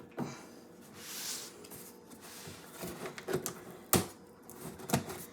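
A cardboard box being cut open with scissors: a scraping slice through the tape about a second in, then rustling and knocks of the flaps, and two sharp clicks near the end.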